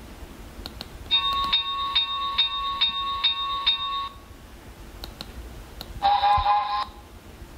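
Sound effects played by an Arduino-based DCC decoder, triggered from its function keys. First comes about three seconds of a ringing, bell-like tone struck about two and a half times a second. After a pause with a couple of mouse clicks, a second tone sounds, just under a second long.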